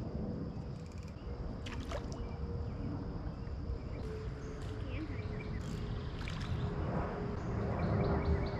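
Creek-side outdoor ambience: a steady low rumble with a constant high insect drone, and a few short clicks and rustles from handling a fly rod and line.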